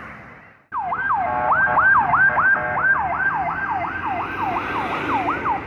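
Police car siren in a fast yelp, sweeping up and down about two and a half times a second over traffic noise. It starts suddenly about a second in and cuts off near the end.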